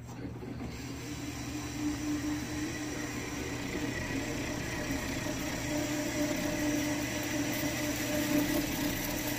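Nova Voyager DVR drill press drilling a 15/16-inch hole through 1-inch mild steel at low speed, about 250 RPM. A steady hum and whine from the spindle drive, with the cutter grinding in the steel, growing slightly louder as the feed goes on.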